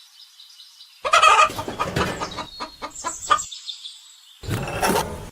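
Chickens clucking in short bursts: a loud burst about a second in, a quick run of clucks in the middle, and another burst near the end, with the sound cutting off abruptly between them.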